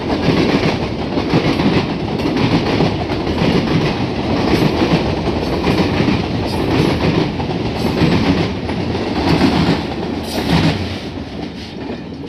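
HO scale model freight cars rolling past on the track: a steady rolling rumble with many small clicks from the wheels, fading over the last couple of seconds as the last cars go by.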